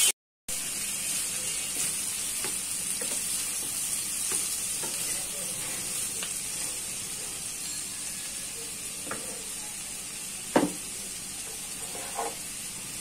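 Potato sticks and cauliflower frying in oil in a pan, sizzling steadily, while a wooden spatula stirs them with occasional scraping knocks against the pan, the loudest about ten and a half seconds in.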